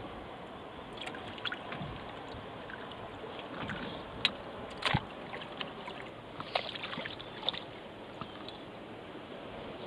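Water sounds from a stand-up paddleboard being paddled on calm water: steady lapping and trickling against the board, with scattered splashes and drips from the paddle, the sharpest ones a little past the middle.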